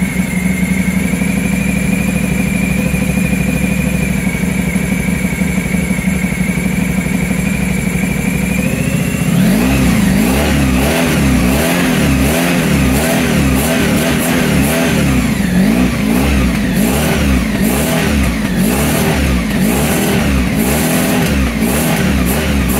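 Honda ST1100 Pan European's V4 engine running on its stand. It runs steadily for about nine seconds, then its revs rise and fall unevenly over and over with scattered crackles.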